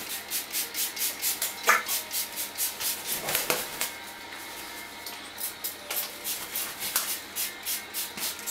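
Handheld trigger spray bottle squirting water mist in quick repeated bursts, about three to four a second, pausing briefly about halfway through before starting again.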